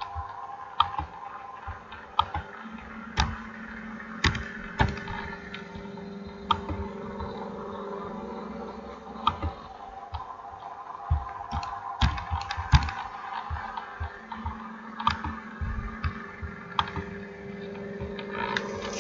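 Irregular clicks of typing at a computer, about one a second and uneven in spacing, over a steady background drone.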